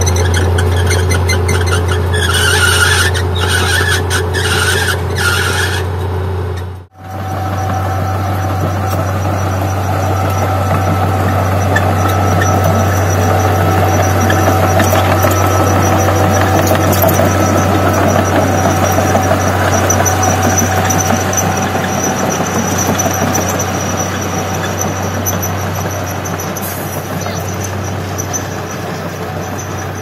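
Komatsu D31P crawler bulldozer's diesel engine running steadily under load while it pushes soil, with squealing from the steel tracks: about four sharp squeals a few seconds in, then a steadier high whine. The sound drops out for a moment about seven seconds in.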